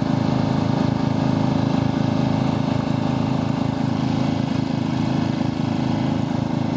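Ride-on lawn tractor engine running steadily at an even speed as the tractor drives across grass.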